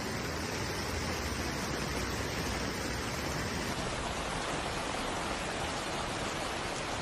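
Steady rushing water noise of heavy rain and flash-flood water, even and unbroken.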